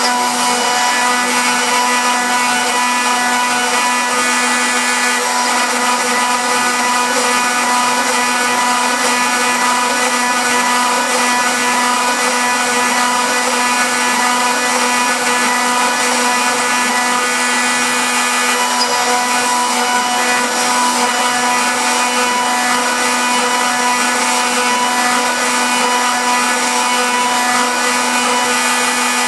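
CNC router spindle running at a steady high speed, its end mill engraving lettering into a fiberboard lid. The sound is a loud, unbroken whine over cutting noise, with no change in pitch.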